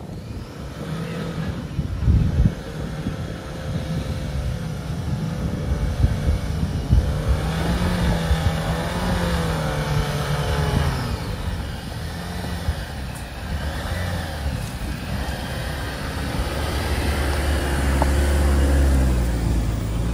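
Jeep Wrangler engine pulling up a rutted dirt trail, its pitch rising and falling as the throttle is worked, growing louder as it comes close near the end.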